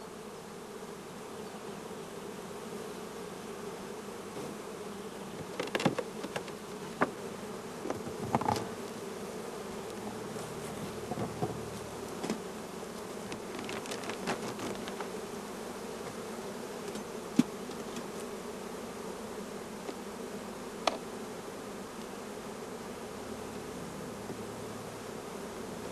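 Honeybees buzzing steadily, the continuous hum of a colony. A few sharp knocks and clicks break in through the middle stretch.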